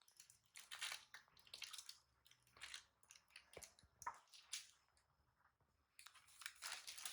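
Faint, irregular crunching and rustling, a series of short bursts.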